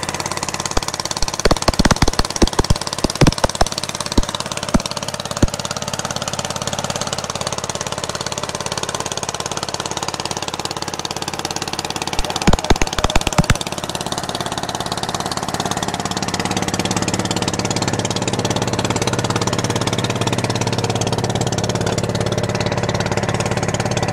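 Boat engine running steadily, with two clusters of sharp knocks, the first in the opening few seconds and the second about halfway through. The engine grows a little louder in the last third.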